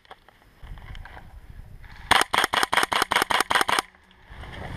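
Airsoft rifle firing a rapid string of about eleven shots, some six a second, for under two seconds, close to the microphone. A low rumble of wind or handling noise comes before the string.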